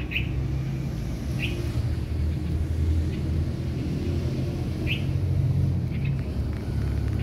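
A steady low rumble, with a small bird giving short high chirps about four times.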